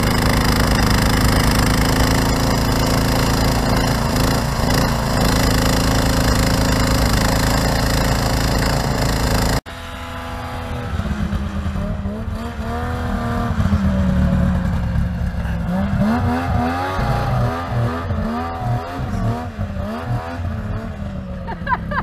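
Snowblower engine running steadily as the machine churns through snow. About ten seconds in it gives way abruptly to a snowmobile engine revving up and down again and again, its pitch rising and falling.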